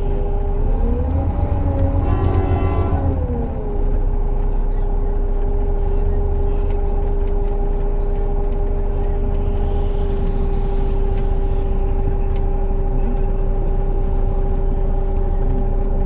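Running noise of a moving road vehicle heard from inside: a steady low rumble under a steady whine. About a second in, the whine rises in pitch and holds, then drops back at about three and a half seconds, and a brief buzzy, horn-like tone sounds around two to three seconds in.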